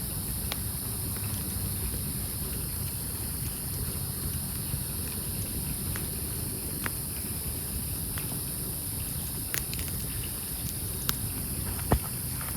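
Wood campfire burning, with scattered sharp pops and crackles from the logs over a low steady rumble; the loudest pop comes near the end.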